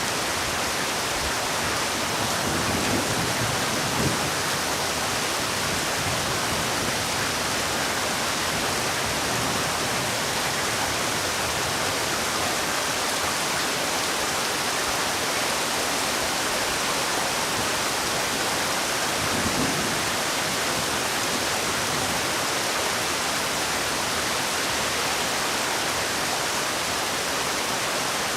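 Heavy rain falling, a dense, steady hiss with no breaks, and two brief low rumbles partway through.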